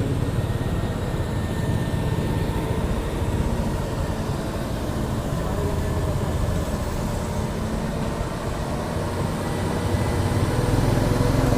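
Large truck running steadily, a continuous low engine and road noise.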